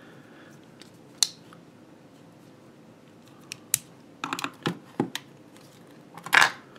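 Light plastic clicks and taps as the battery door on the back of a Fluke 17B+ multimeter is worked loose by hand, a few single clicks, then a quick cluster, and a louder clack near the end as the door comes free.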